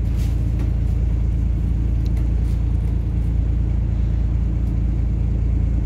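Steady low rumble of a city bus, heard from inside the passenger cabin, with a few faint light ticks.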